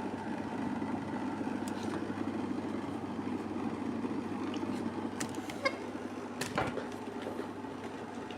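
HHO generator running with a steady low hum, with a few light clicks and knocks about five to seven seconds in.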